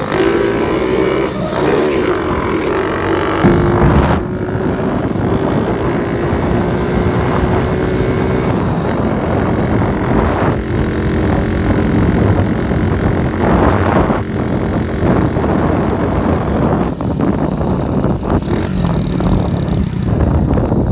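Motorcycle with a loud exhaust running under way, its engine note rising and falling gently with the throttle, with wind rushing over the microphone.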